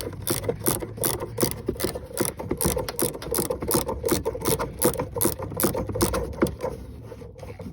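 Hand ratchet from the Jeep's toolkit clicking rapidly and evenly, about six clicks a second, as it backs out a taillight fastener; the clicking stops near the end.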